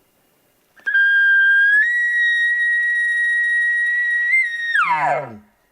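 Bull elk bugling: a loud, high whistling note held for about four seconds, stepping up in pitch about a second in, then sliding steeply down to a low note at the end.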